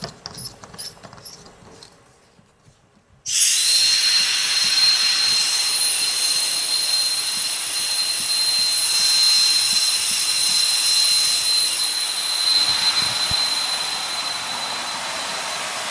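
Compressed air blasting out of the open end of a newly plumbed Prevost air line, purging the pipe-cutting shavings from the system. It starts suddenly about three seconds in as a loud, steady hiss with a thin high whistle, easing slightly near the end.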